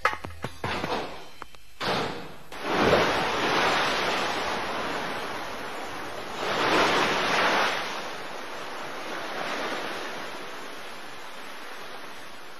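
Rushing outdoor ambience noise, a sound effect, that swells loudly about three seconds in and again around seven seconds in, then settles to a steady lower rush.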